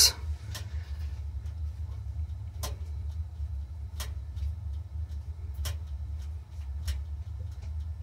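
Steady low rumble of a Rheem gas water heater's burner firing, freshly relit, with a dozen or so scattered sharp ticks.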